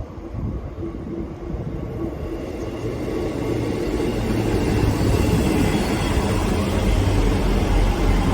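Diesel train approaching along the line, its engine drone and wheel-on-rail rumble growing steadily louder and reaching full strength near the end.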